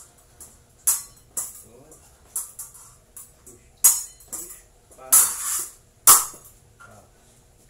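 Steel épée blades clicking and clashing against each other in a string of irregular, sharp strikes, the loudest about four and six seconds in, with a longer scraping slide of blade along blade just after five seconds.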